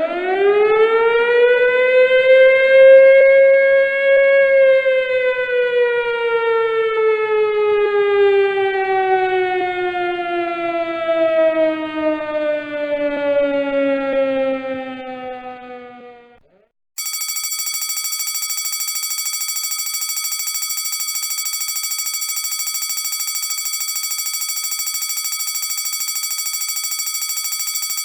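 A siren rises in pitch over about four seconds, then winds slowly down and cuts off about sixteen seconds in. A steady, rapidly pulsing ringing alarm then starts abruptly and keeps going.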